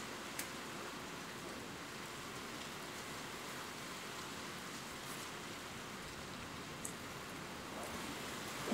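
Steady rain falling, an even hiss with a few sharp drop ticks scattered through it. A low rumble of thunder swells right at the end.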